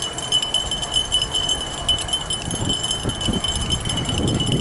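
Steady metallic jingling, like small bells or tags shaking on the move, over a constant rumble of wind and tyres rolling on the trail.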